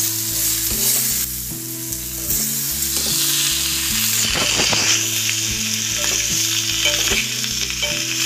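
Potato pieces frying in hot oil in a kadai, a steady sizzle, while a metal spatula stirs them and scrapes against the pan a few times around the middle.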